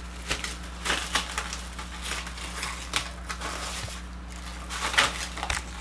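Plastic cling wrap crinkling as it is pulled off and pressed over a bowl, in irregular rustles.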